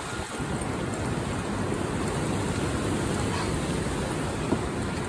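Steady rushing noise of wind on the phone's microphone and ocean surf, with one short knock about four and a half seconds in.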